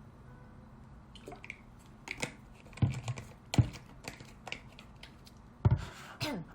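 Irregular light taps and clicks, with a few heavier knocks, from objects being handled close to the microphone.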